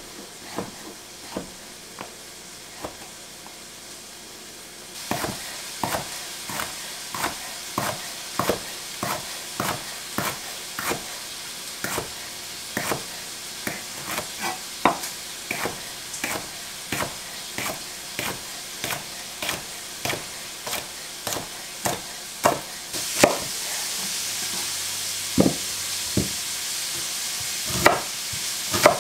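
Knife chopping vegetables on a cutting board, sharp knocks about one to two a second, over the steady sizzle of bacon frying in a cast iron skillet. The sizzle gets louder about five seconds in and again near the end.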